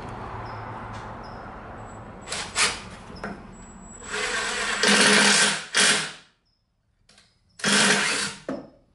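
Power drill driving 1-inch screws through the drawer box into a drawer face, in bursts: a short one a little over two seconds in, a long run of about two seconds in the middle, and a shorter run near the end.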